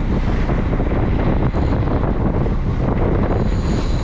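Wind rushing over the microphone on a boat at sea, over the steady low noise of the boat's engine and water along the hull. A faint high whine comes in near the end.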